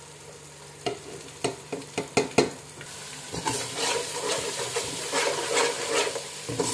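Onions, tomatoes and green chillies frying in oil in a pot, sizzling as a metal spoon stirs and scrapes through them. A few sharp clinks come between about one and two and a half seconds in, then the stirring and sizzling grow louder and steadier from about three seconds.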